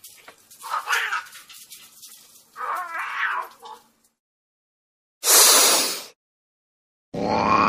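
Domestic cat giving two drawn-out yowls, about one second and three seconds in. About five seconds in comes a loud, second-long burst of hiss-like noise. Music begins near the end.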